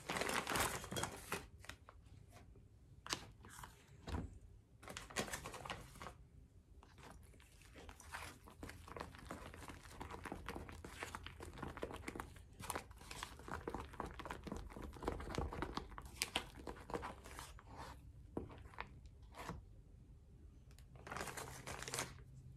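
Plastic piping bag crinkling and rustling in irregular bursts as it is squeezed and worked by hand to push the paste down toward the tip.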